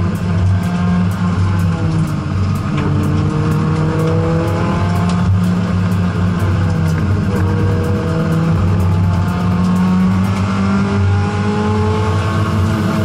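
Honda CRX's four-cylinder engine heard from inside the cabin under hard driving, its pitch climbing and dropping back several times as it accelerates and lifts between corners.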